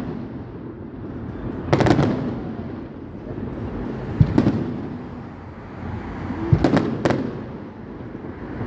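Aerial firework shells bursting overhead, a sharp bang about every two and a half seconds, each followed by a rolling rumble of echo; near the end three bangs come close together.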